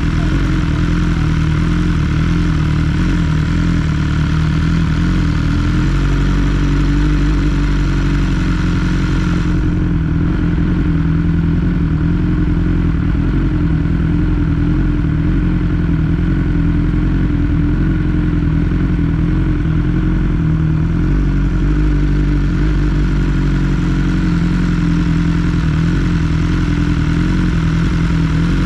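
BMW S 1000 R's inline-four engine running steadily at an even pace while riding, its pitch holding nearly constant.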